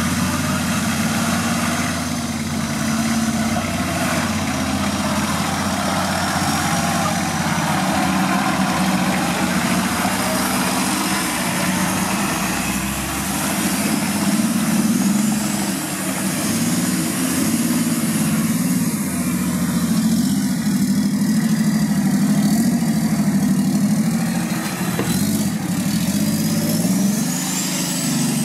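Nissan Patrol 4x4 engine running under load as it crawls through mud, the revs rising and falling every second or two as the throttle is worked. A faint high whine rises near the end.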